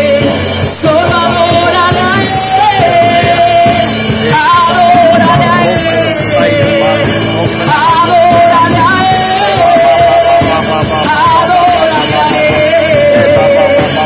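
Loud amplified Christian worship music: a singer carries a wavering, long-held melody over steady accompaniment.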